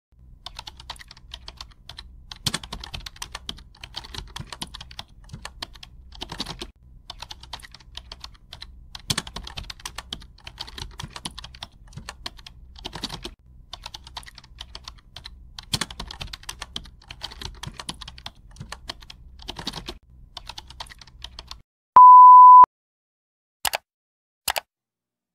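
Keyboard typing sound effect: a fast, uneven run of key clicks with a heavier stroke every few seconds. It stops near the end and gives way to a short, loud, steady beep and then two sharp clicks.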